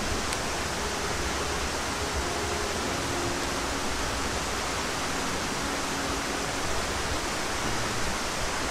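Steady rushing noise with no breaks or distinct events.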